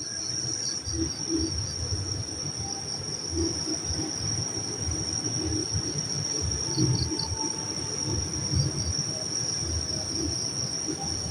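Steady high-pitched chirring of night insects, with uneven low rumbling and rustling underneath.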